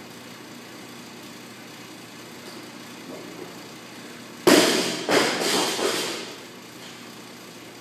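Loaded barbell with black bumper plates dropped from overhead onto the gym's rubber floor: one loud impact about halfway through, then a second hit and a few smaller bounces and rattles dying away over about a second and a half.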